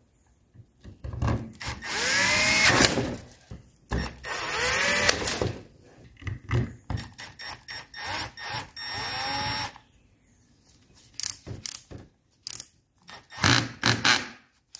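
Cordless drill/driver running in three bursts of one to three seconds, its motor whine rising in pitch as it spins up, then several short trigger blips near the end.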